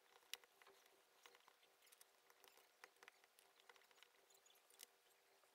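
Faint, scattered clicks and ticks of red-handled flush cutters snipping component leads on a small circuit board, over a faint steady hum.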